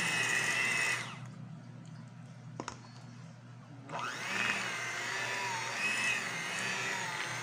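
Electric hand mixer whirring with a steady whine as its beaters whip cream in a stainless steel bowl. About a second in the sound drops much quieter for about three seconds, with a single click, then the whine comes back up.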